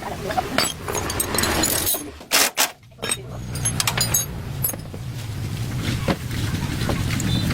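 A small engine running, with metallic clinks and knocks over it; the engine hum drops away about two to three seconds in, then builds back up louder.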